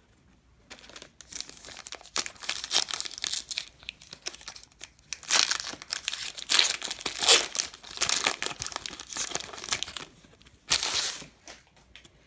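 Plastic wrapper of a 2018 Panini Diamond Kings trading-card pack being torn open and crinkled by hand. It comes in uneven bursts of rustling, loudest in the middle, with one last crinkle near the end.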